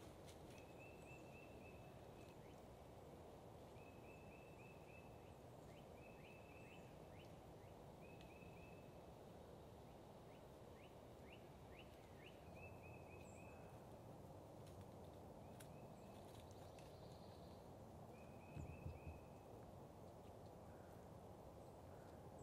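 Faint calling from a wild turkey flock: short runs of rapid high notes, repeated every second or two, over a steady low background hiss. A brief low thump comes late on.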